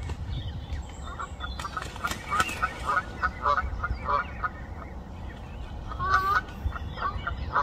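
Canada geese honking on the water: a run of short, repeated honks, two or three a second, with one louder call about six seconds in, over a steady low rumble.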